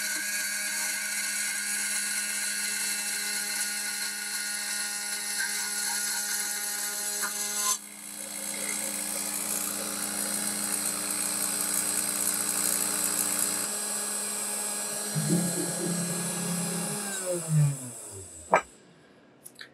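3018 desktop CNC router's spindle running at about 12,000 rpm while a chamfer bit cuts the edge of an aluminum plate, a steady machine whine with several tones. Near the end the tones fall in pitch and the sound dies away as the spindle winds down at the end of the chamfer pass.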